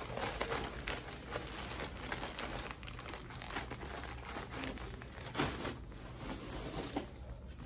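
Continuous crinkling and rustling of plastic packaging and clothes being handled and sorted.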